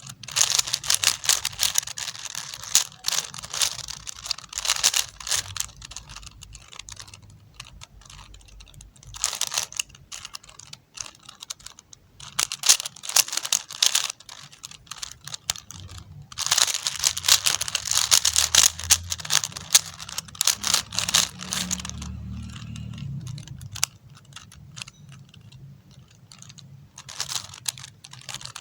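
4x4 Rubik's cube being turned quickly by hand: rapid clicking and clacking of the plastic layers, in several runs of turns with short pauses between.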